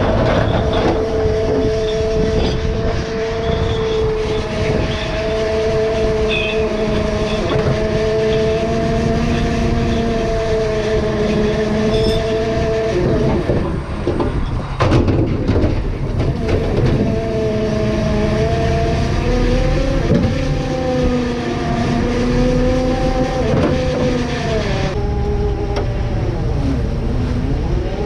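Fishing boat's engine and deck machinery running with a steady droning whine that wavers and drifts in pitch, over the rush of the boat through the sea.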